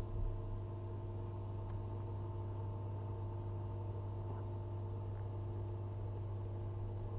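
Steady low electrical hum of the nano aquarium's water pump, with a few faint clicks.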